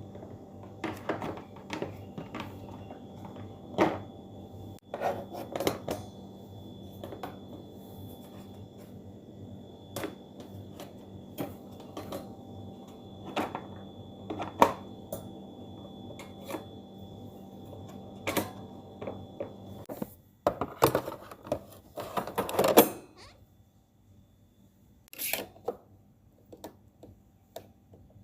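Coffee machine running with a steady hum, with sharp clicks and knocks of handling over it. The hum stops about twenty seconds in, followed by a short burst of clattering and then a few scattered clicks.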